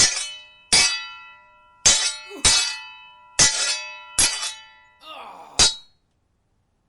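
Metal sword blades clashing: about seven sharp, ringing clangs at an irregular pace, each ring dying away before the next, stopping about six seconds in.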